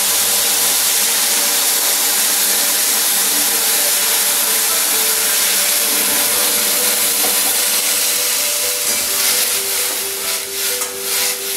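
Boiled dal hitting hot mustard-oil tempering in a kadai: a loud, steady sizzle and hiss of steam that eases off near the end. Near the end a metal spatula scrapes the pan a few times.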